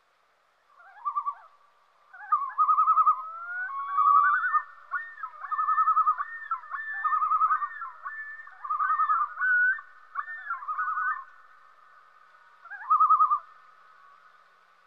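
Common loons calling: a string of quick quavering tremolo calls interleaved with rising and falling wailing glides, the calls overlapping one another through the middle. A last tremolo comes alone near the end.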